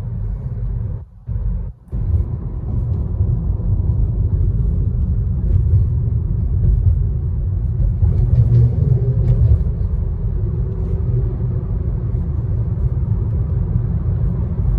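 Steady low rumble of a moving car, road and engine noise heard from inside the cabin, with two brief dropouts about a second in.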